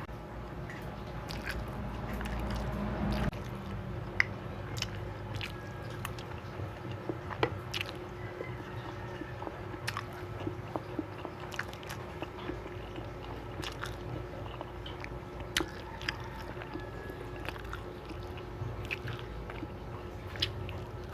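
Close-miked eating: biting and chewing with scattered sharp clicks and crunches, over a low rumble that cuts off about three seconds in.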